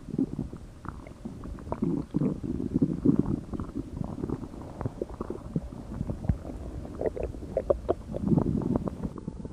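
Stomach growling: irregular low rumbles mixed with short gurgling squeaks and pops, which come in a quick run about seven to eight seconds in.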